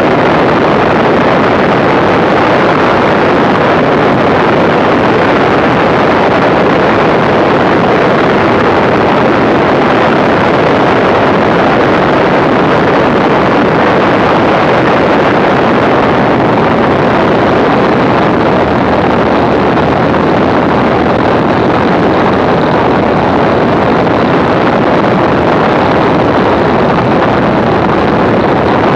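The inverted six-cylinder Walter Minor engine of a Zlin Z-326 Trener Master running steadily in flight, buried under heavy wind noise rushing over the microphone.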